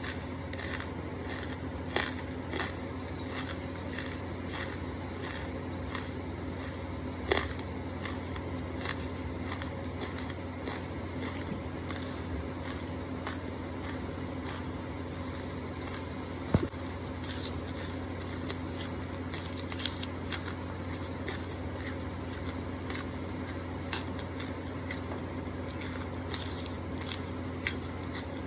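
Close-miked chewing of crunchy charcoal: a steady run of small crunches and crackles as it is bitten and ground between the teeth, with a few louder, sharper cracks.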